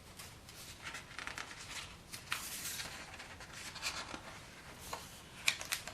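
Picture-book pages being handled and turned: soft paper rubbing and rustling with a few sharp ticks, the sharpest near the end.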